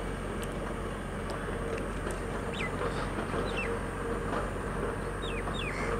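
Several short, falling bird calls, bunched in the second half, over a steady low background rumble.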